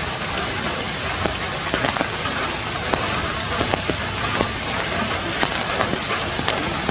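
Steady rain falling on broad forest leaves: an even hiss with many individual drops tapping close by at irregular moments.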